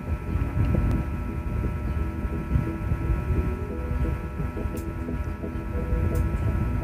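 Instrumental intro of a karaoke backing track, with a few held notes from about halfway in, under a steady low rumbling noise from the phone's microphone.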